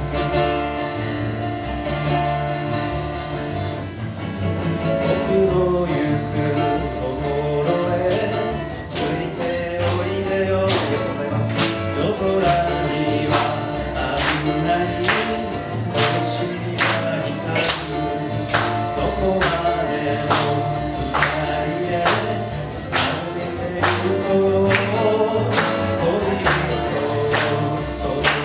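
Live acoustic band music: a man sings into a microphone over strummed acoustic guitars and a plucked double bass. The singing comes in a few seconds in, after a short guitar intro.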